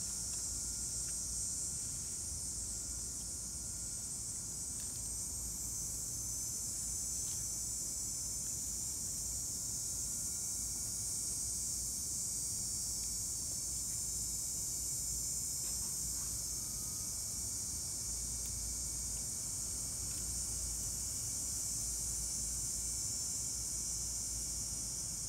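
Steady outdoor background: an even high-pitched hiss over a low rumble, unchanging throughout, with no clear calls or knocks from the animals.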